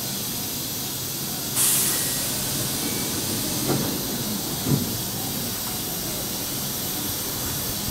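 Sudden loud hiss of compressed air from a Keihan 6000 series electric train standing at the platform as its doors close, about one and a half seconds in and fading over a second. Two light thuds follow a couple of seconds later, over the train's steady idling hum.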